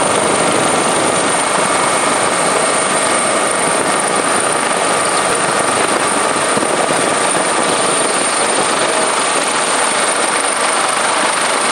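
Steady noise of a helicopter's engine and rotor heard from on board, with a thin high whine held over it.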